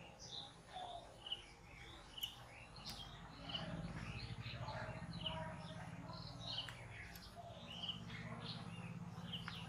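Small birds chirping on and off, many short high calls. A faint steady low hum sits underneath and grows a little louder about three and a half seconds in.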